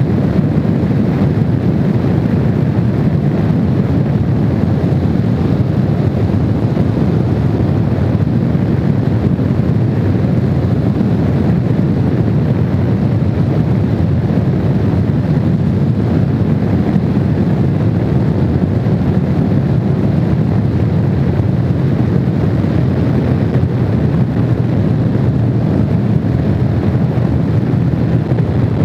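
Honda VFR750's V4 motorcycle engine running steadily while riding, mixed with wind rushing over the microphone.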